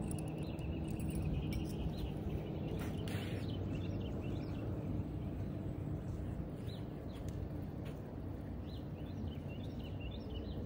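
Small birds chirping now and then over a steady low outdoor rumble.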